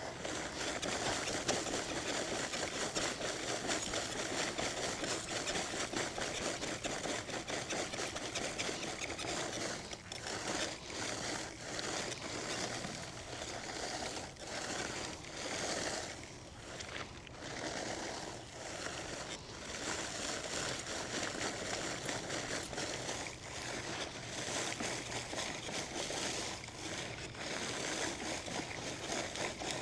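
Scotts Turf Builder EdgeGuard Mini walk-behind broadcast spreader being pushed across a lawn, its wheels, gears and spinning disc rattling steadily as the fertilizer granules are flung out, with short drops in the sound now and then as it slows or turns.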